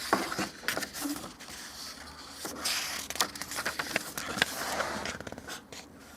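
Paper rustling and scraping with scattered clicks and taps: a paperback picture book being handled and its pages turned.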